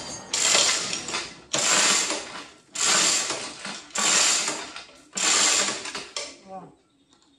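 Five bursts of mechanical rattling about a second apart. Each starts sharply and fades away, like a ratcheting mechanism being worked.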